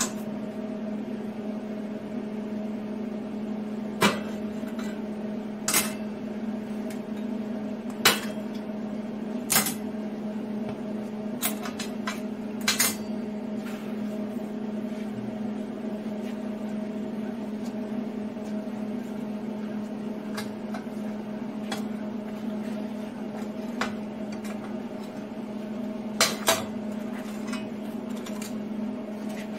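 Steel pieces and tools clanking on a steel welding table as they are handled and set in place, about ten sharp knocks at irregular intervals with a close pair near the end, over a steady low hum.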